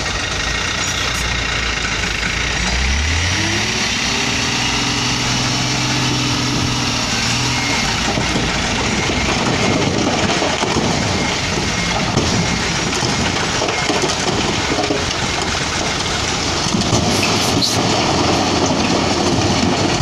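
Hino dump truck's diesel engine revs up about three seconds in and holds high revs for several seconds, driving the hydraulic hoist that lifts the tipper body. After that a dense, rough rumble continues as the raised body tips its load of rock.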